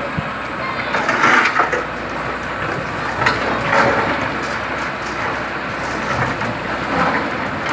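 Hyundai hydraulic excavator running while its bucket breaks apart and pulls down a concrete and brick wall. The steady engine sits under crumbling masonry, with several sharper cracks and crunches of concrete giving way.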